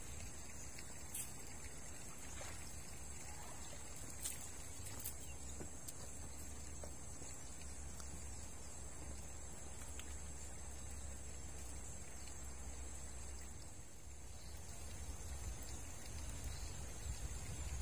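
Outdoor riverbank ambience: a steady, high insect drone over a low, even rumble, with a few faint clicks.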